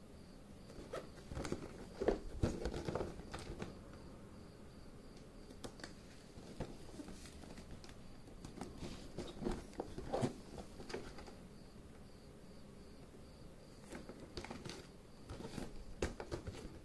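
Cardboard toy box being handled and turned over: fingers rubbing and tapping on the cardboard in irregular clicks and rustles, loudest about two to three seconds in.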